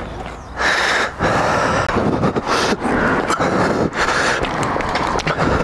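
A person breathing hard in quick, noisy breaths.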